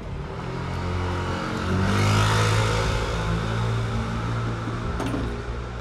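A motor vehicle's engine running close by on the street. Its low note swells to its loudest about two seconds in, then eases off.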